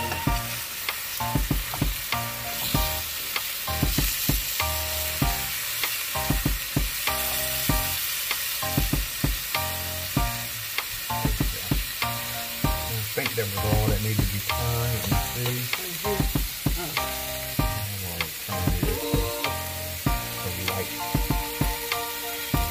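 Monkfish pieces sizzling as they pan-sear in butter and oil in a nonstick frying pan, with a fork clicking against the pan at irregular moments as the pieces are turned.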